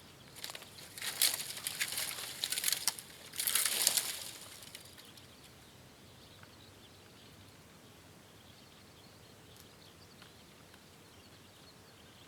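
Dry twigs and kindling rustling and crackling as they are handled at a campfire, in a few uneven bursts over the first five seconds with the loudest near four seconds in, then only a faint steady outdoor hiss.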